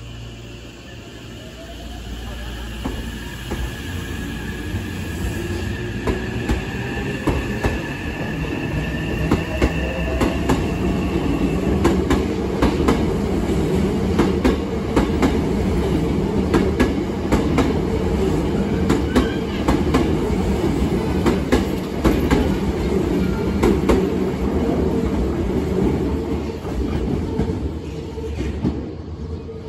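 Hankyu 9000 series electric commuter train pulling out of the station. Its motor whine rises in pitch as it accelerates over the first ten seconds or so, then the cars rumble and clatter over the rail joints close by, and the sound drops away near the end.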